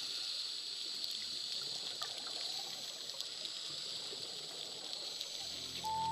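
Steady underwater hiss of water noise picked up by a camera in its underwater housing, with a few faint ticks. Background music comes back in near the end.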